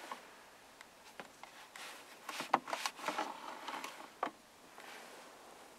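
Hands working the sliding lid and pop-up insert of a car's rear centre console: a cluster of plastic clicks, knocks and rustling in the middle, then one sharp click a little later.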